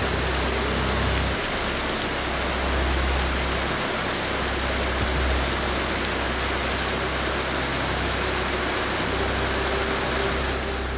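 Steady rushing splash of a fountain jet falling back onto a river, with a low rumble underneath.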